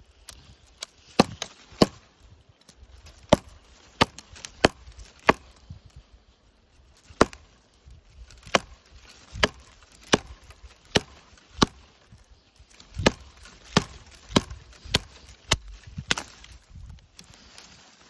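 Small axe chopping into a fallen pine log: about twenty sharp blows in uneven runs with short pauses between them. The chopping is a test cut, looking for resin-soaked fatwood inside the wood.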